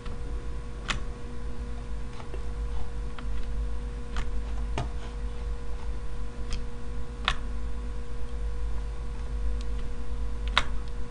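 Irregular single clicks of a computer mouse being worked, about seven in all with the loudest near the end, over a steady low electrical hum with a faint constant tone.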